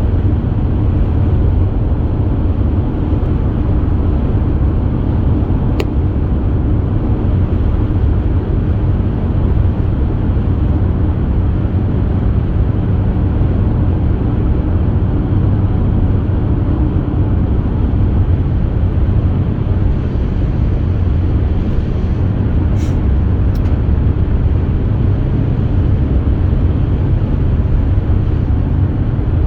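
Steady road noise inside a moving car at highway speed: a constant low rumble of tyres and engine, with a couple of faint ticks.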